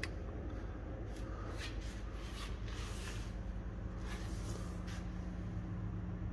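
Room tone under a car on a workshop lift: a steady low hum, with faint scattered rustles and scuffs.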